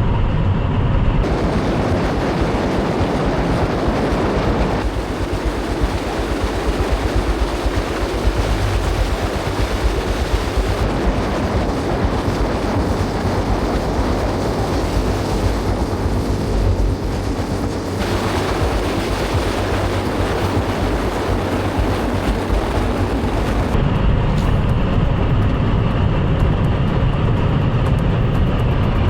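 Electric car at full acceleration on a half-mile drag run, reaching about 210 mph: a loud, steady rush of wind and tyre noise with no engine note, its character shifting several times.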